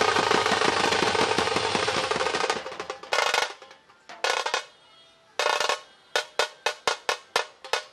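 Street band drumming on large metal-shelled bass drums and snare drums: a fast, continuous roll dies away about two and a half seconds in, then single sharp strokes come spaced apart and quicken to about three a second near the end.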